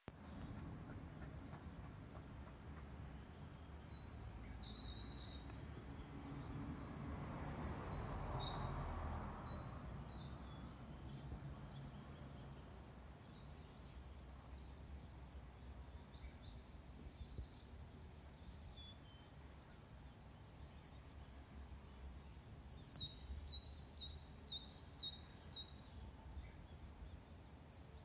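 Small birds chirping and singing outdoors, with a louder quick run of falling notes about twenty-three seconds in. A low background rumble swells and fades about eight seconds in.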